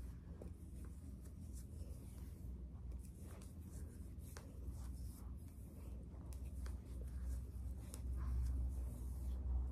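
Soft rustling and rubbing of hair as long braiding hair is handled and twisted into a braid by hand, heard over a low steady hum that grows louder near the end.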